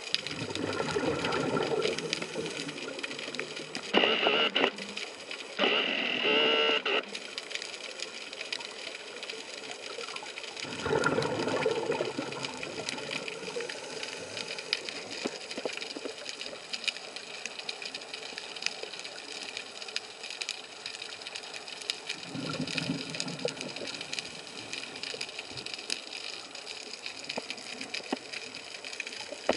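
Slow breathing through a scuba regulator underwater. Three bubbly exhalations come roughly ten seconds apart, and two short hissing, whistly inhalations fall between the first and second. A steady faint hum runs underneath.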